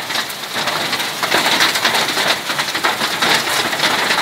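Hailstorm: countless small hailstones, with rain, pelting the ground and nearby surfaces. It is a dense, steady hiss full of rapid little ticks of impact.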